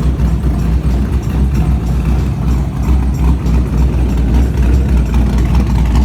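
Ford Mustang SN95 engine idling through a straight exhaust with the Flowmaster mufflers removed: a loud, deep, uneven rumble.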